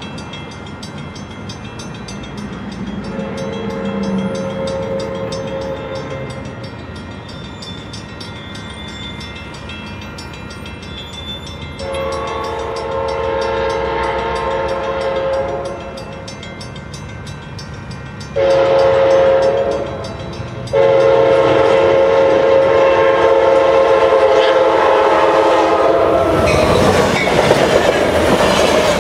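Railroad crossing bells ringing at a steady quick beat while an Amtrak Surfliner passenger train approaches, sounding its multi-note horn in the grade-crossing pattern: two long blasts, a short one, then a long one held for several seconds. The first blast is fainter. Near the end the train passes close by with a loud rush of wheel and rail noise.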